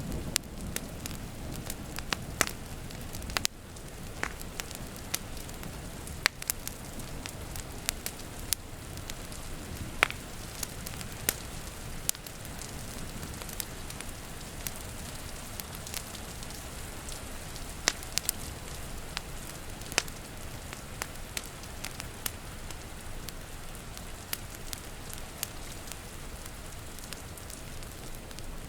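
Wood fire crackling with irregular sharp pops over a steady hiss of rain; a low rumble of thunder fades out in the first few seconds.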